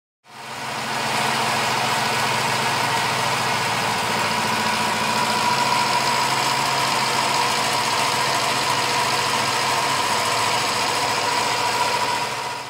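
Milling machine running, its end mill cutting hex flats on a threaded metal puller: a steady machine drone with a high whine over a low hum.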